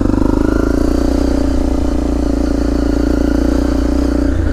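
Honda CRF250L's single-cylinder four-stroke engine running at a steady, even pitch as the bike rides along a dirt track.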